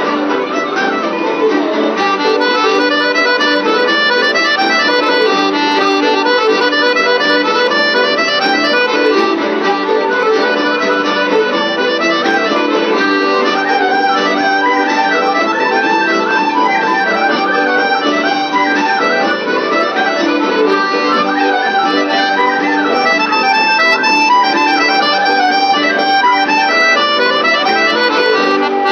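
Live Irish traditional session music: an accordion leads a tune with other instruments in a steady, unbroken run of notes.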